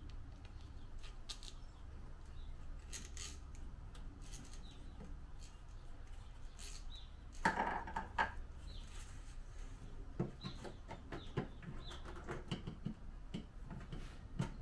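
Blue corrugated plastic conduit being handled and fed over wires: scattered light clicks and rustles, with a louder rustle about seven and a half seconds in and a run of small ticks near the end.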